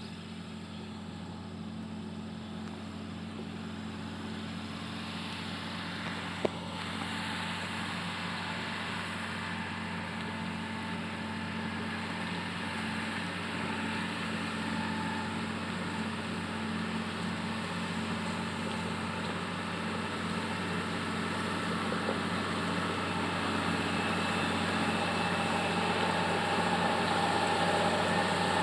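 Komatsu GD511A motor grader's diesel engine running steadily, slowly growing louder, with a single sharp click about six seconds in.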